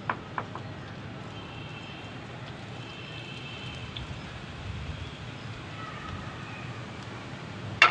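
Wood fire burning in a clay chulha under an iron karahi: a steady low hiss with a few small clicks, and a sharp knock near the end.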